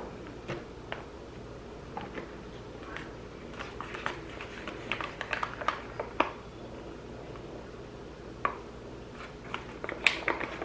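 A fork scraping and tapping pieces of cooked chicken out of a pouch onto a tortilla: scattered light clicks and rustles, busiest in the middle and again near the end, over a faint steady low hum.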